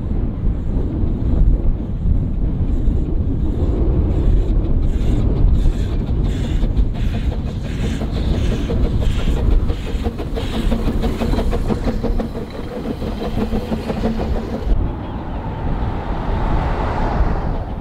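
Narrow-gauge steam locomotive pulling a train away from the station: a run of regular exhaust beats over a low rumble, with the train running on the rails as it passes.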